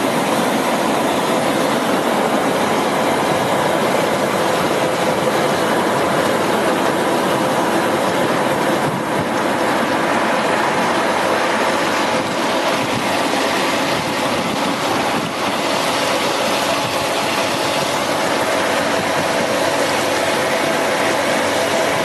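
Stainless-steel QX-22 papaya washing machine running. Its tank of water churns and bubbles over a steady mechanical hum.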